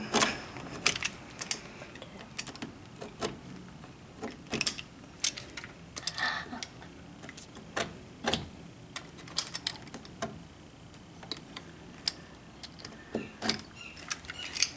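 A knife scoring the wooden door jamb around a latch strike plate to mark where it will be cut: irregular sharp clicks and scrapes, with a short longer scrape about six seconds in.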